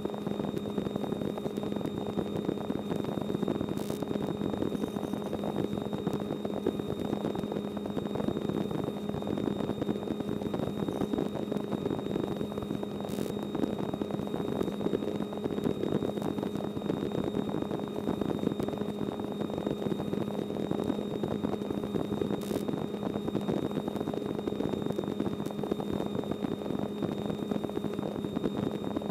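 Light helicopter in cruise, heard from inside the cabin: a steady engine-and-rotor hum with a thin, high steady whine. Three faint clicks come at wide intervals.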